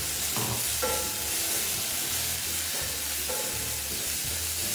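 Watery black pepper sauce sizzling and bubbling in a stainless-steel wok while a spatula stirs it, with a few short stirring strokes.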